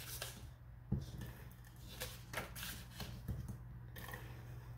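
Adhesive tape runner pressed and rolled along the back of a small piece of patterned paper, with soft paper rustling and a few faint clicks and taps.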